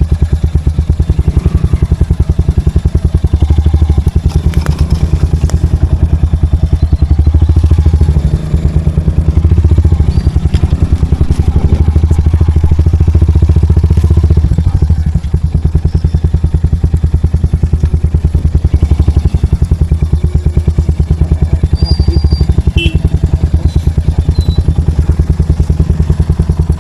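Royal Enfield Hunter 350's single-cylinder engine running steadily while being ridden, its exhaust giving an even, closely spaced beat.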